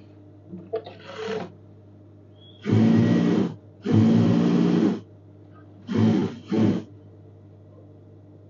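Sewing machine stitching a sleeve onto a garment: two runs of about a second each, then two short bursts, over a steady low motor hum.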